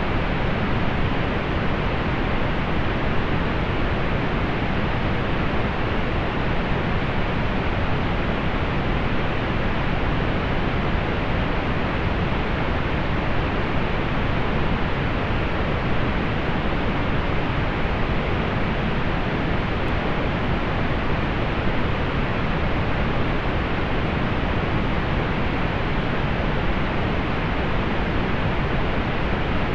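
Steady pink noise: an even, unchanging hiss, strongest in the lows, with the highest frequencies cut off.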